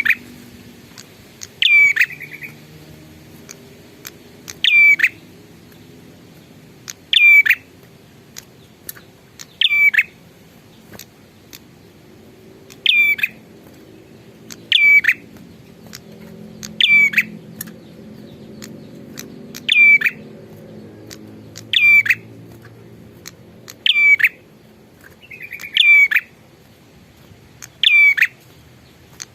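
A prenjak songbird calling loudly and repeatedly. Each call is a short, sharp, high note with a quick sweep in pitch, repeated about every two seconds.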